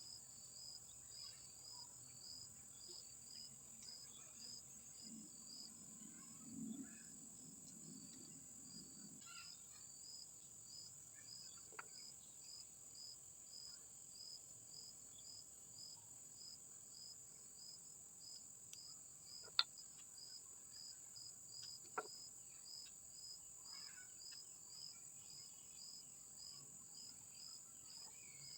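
Faint insect chorus: a steady high-pitched drone with a regular pulsing chirp, like crickets. A few isolated sharp clicks sound over it.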